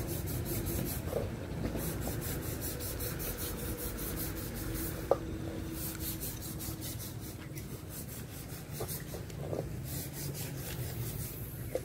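Shimano Sienna spinning reel being cranked to retrieve a lure, its gears turning with a rapid, even ticking whir in several spells separated by short pauses. A single sharp knock about five seconds in.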